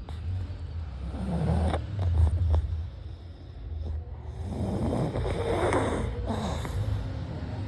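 Pug snoring: two long snores, the first starting about a second in and the second about four and a half seconds in.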